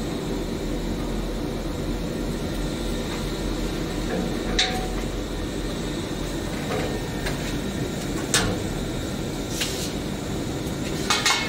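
Steady hum of workshop machinery with a few sharp metallic clinks, about five, as a stainless-steel diffusion pump core is handled and lowered into the pump body.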